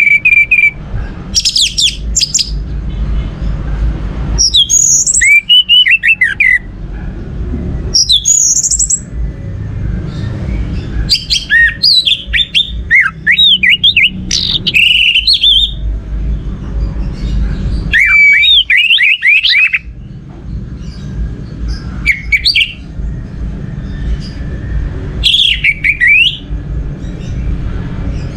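Orange-headed thrush (anis merah) singing: short bursts of rapid, varied whistled phrases and trills, separated by pauses of one to three seconds, over a steady low rumble.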